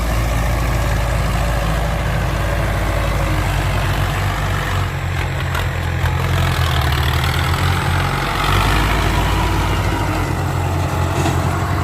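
Ford 6610 tractor's four-cylinder diesel engine running steadily and loud, with a deep, even drone.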